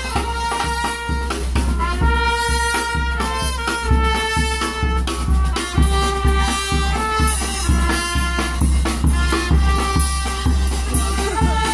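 Marching brass band playing a tune: trumpets carry the melody over a steady drum beat.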